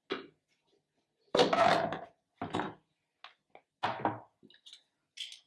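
A ceramic lid lifted off a glass baking dish and set down: a scraping clatter about a second in, then a few lighter knocks.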